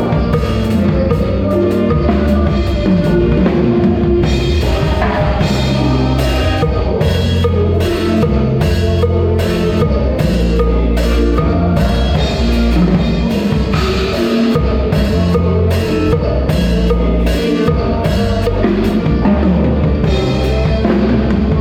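A live band playing loudly, led by a drum kit with regular kick, snare and cymbal hits over low sustained bass notes that change every second or so.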